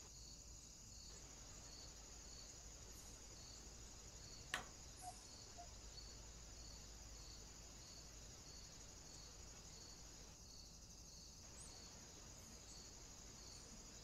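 Faint, steady high-pitched chirring of crickets, with an even pulse about twice a second. A single sharp click about four and a half seconds in, followed by two softer ticks.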